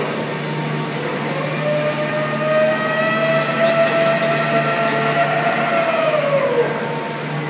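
The Great Elephant of Nantes' diesel-driven hydraulic system working as the trunk lifts: a steady low hum under a whine. The whine rises in pitch about half a second in, holds, then slides down about six seconds in.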